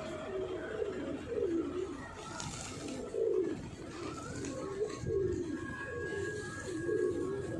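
Pigeons cooing repeatedly, one soft warbling coo after another.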